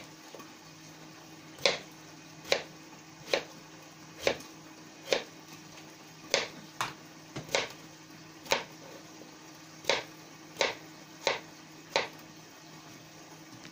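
Knife slicing a raw potato on a plate, each cut ending in a sharp click of the blade against the plate, a dozen or so at an uneven pace of roughly one a second, over a faint steady hum.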